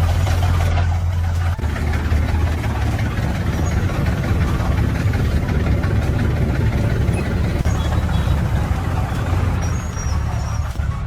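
Heavy truck engine running with a steady low drone; its strongest low note drops away about one and a half seconds in, and the engine keeps running.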